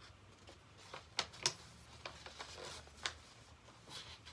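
A sheet of white printer paper being handled and folded in half: faint rustling with a few short, crisp crackles about a second in and again around three seconds in.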